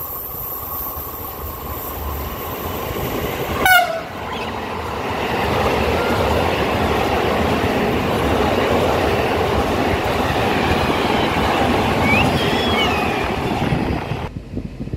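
Freight train of tank wagons rolling past at speed: a steady rumble with wheel clatter, and brief faint wheel squeals near the end. About four seconds in, a short loud sound sweeps down in pitch, the loudest moment. The train sound cuts off suddenly near the end.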